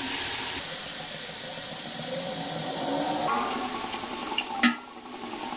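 Strained mustard paste and water pouring into hot oil with turmeric in a kadai, a steady hissing sizzle. A sharp clink sounds about four and a half seconds in, after which the hiss drops.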